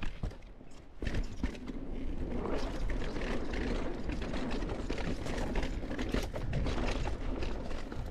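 Mountain bike riding down a dirt trail: knobby tyres rolling over dirt and roots, with chain and frame clattering over the bumps and wind rumbling on the helmet camera's microphone. The noise is louder from about a second in.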